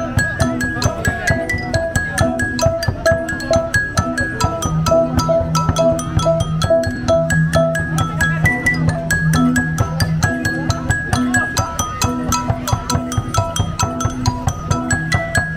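Đàn đá, the Central Highlands stone lithophone, played with a fast, steady run of struck notes. Each ringing stone slab gives a bright, short pitch, over lower sustained tones.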